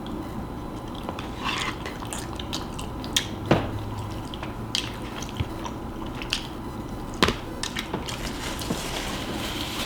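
Close-miked chewing and eating: scattered wet mouth clicks and smacks, with two sharper clicks about three and a half and seven seconds in.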